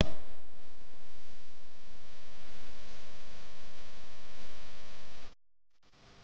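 Steady hissing noise with a faint hum, cutting off suddenly about five seconds in.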